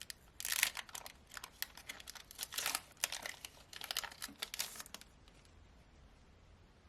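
Foil booster pack wrapper crinkling and tearing as it is ripped open and handled, a quick run of crisp rustles that stops about five seconds in.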